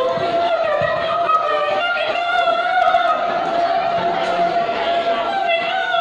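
A young man's voice singing into a microphone over a PA, holding long, slightly wavering notes.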